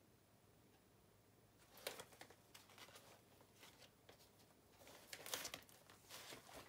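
Rustling and crinkling of checked woven plastic laundry bags being handled and unfolded, in short bursts about two seconds in and again past the middle.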